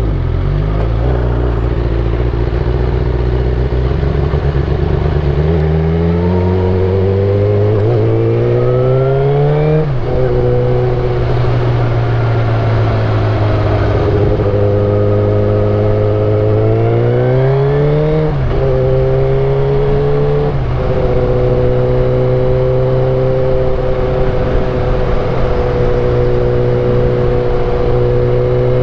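Suzuki GSX-R1000 K8 inline-four motorcycle engine and exhaust under way, pulling up through the gears. The pitch climbs and drops sharply at an upshift about ten seconds in, climbs again to a second shift near eighteen seconds, then holds steady at cruising speed.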